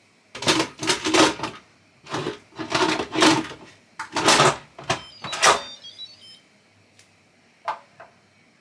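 Instant Pot lid being set on the pot and twisted closed: several scraping, rattling strokes of the lid against the rim, then a faint short run of high electronic beeps, the kind of chime the cooker gives when the lid locks. A few small clicks follow near the end.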